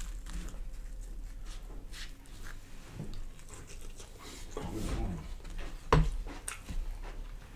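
Close-up eating sounds of fried catfish fillet being torn, bitten and chewed, with wet mouth clicks and smacks. A short voiced murmur comes about five seconds in, and a sharp tap about six seconds in is the loudest sound.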